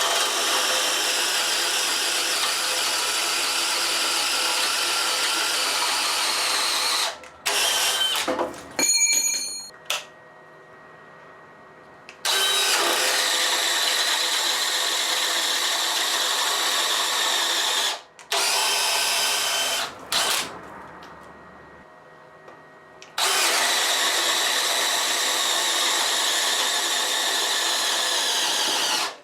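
DeWalt DCD996 cordless brushless hammer drill running under load in three steady runs of about six seconds each, with a few short bursts between them. One brief burst about nine seconds in has a high whine.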